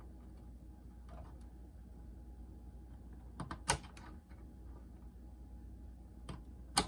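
Small plastic clicks and taps of fingers prying at a wire connector on a boombox's circuit board: a few faint clicks, a quick run of sharper clicks about three and a half seconds in, and one loud click near the end.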